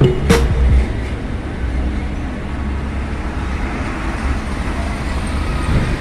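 Road traffic passing, heavy vehicles such as buses among it, as a steady rush of engine and tyre noise. A sharp click comes about a third of a second in, and a low engine rumble fades away within the first second.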